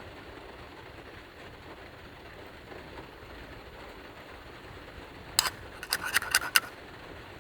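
Heavy rain beating steadily on the roof of a Subaru Sambar kei van, heard from inside. Near the end, a quick run of about six sharp clicks or taps cuts through the rain.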